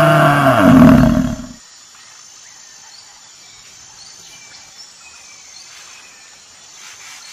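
A buffalo's bellow: one long, low call that sags in pitch and cuts off about a second and a half in, followed by faint outdoor background.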